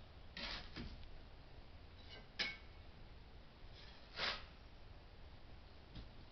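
Faint work sounds: a few short scrapes and one sharp clink about two and a half seconds in.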